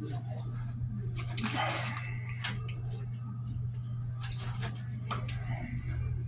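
Clinks of dishes and cutlery on a diner table over a steady low hum: a brief rustle, then one sharp clink about two and a half seconds in, and a few lighter clicks after it.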